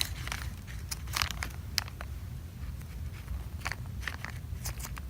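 Scattered light rustles and small clicks of squishy toys and their plastic packaging being handled and set down, over a low steady hum.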